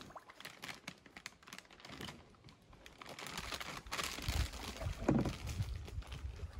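Scattered clicks, knocks and crinkling of camping gear and boats being handled as a canoe and kayak are loaded, busiest in the second half, with a low rumble under it.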